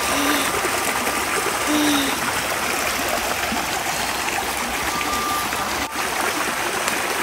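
A small rocky creek running over stones, a steady rush of trickling water.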